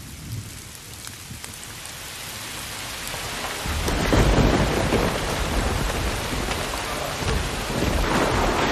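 Heavy rain starts to pour and grows louder, and a thunderclap rumbles in about four seconds in, with a second swell of thunder near the end.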